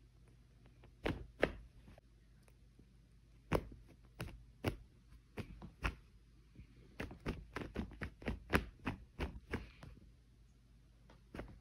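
A Balinese cat bunny-kicking a fabric bathrobe with its hind legs on a bed: a string of soft, irregular thumps and rustles that come faster and closer together in the second half.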